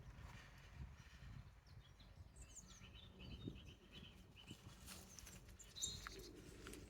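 Faint bird chirps over a quiet outdoor background: a quick run of chirps about two to three seconds in and a few more near the end, with a low rumble underneath.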